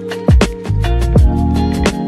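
Background music with a beat: deep kick drums that drop in pitch, three hits, over quick steady hi-hat ticks and held bass and keyboard notes.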